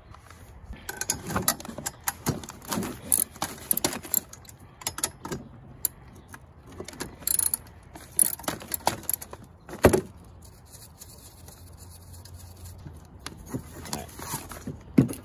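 A hand socket ratchet clicks and metal parts clink as bolts are worked off a car audio amplifier's metal mounting bracket. Irregular handling knocks run through it, with one sharp knock about ten seconds in.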